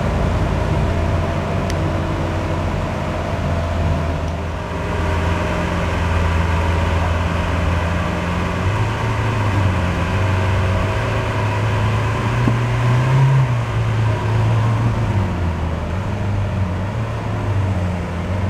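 Lamborghini Aventador SV Roadster's 6.5-litre V12 running at low revs as the car moves off slowly. Its note rises a little about halfway through, peaks briefly, then settles back lower.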